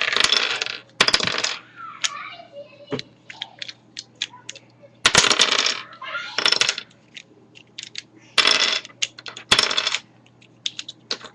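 Plastic Rubik's cube pieces clattering onto a hard surface as the disassembled cube falls apart and its pieces are handled. The sound comes in about six short bursts of rapid clicks, with single ticks in between.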